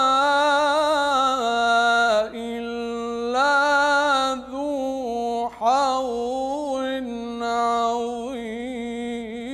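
A man reciting the Quran in melodic tajweed style, drawing out long, ornamented notes that waver and glide in pitch, with short pauses about two and five and a half seconds in.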